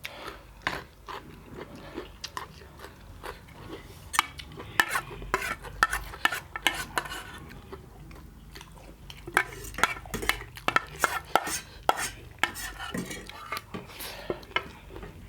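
Eating at the table: rapid clicks and clinks of cutlery against a dish, with food being stirred, coming in clusters.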